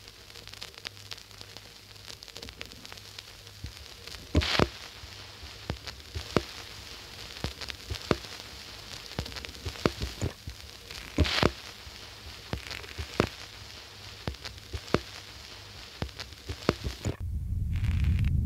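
Crackling sound effect for dry, cracking earth: irregular sharp cracks and ticks over a low steady hum, two of them much louder. Near the end a loud low rumble swells in.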